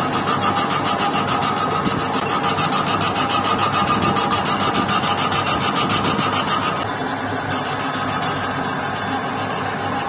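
Metal lathe running with a motorcycle rear wheel spinning in it as the cutting tool machines the hub's bore. A steady machine drone with a fast, even pulsing and a high whine that stops about seven seconds in.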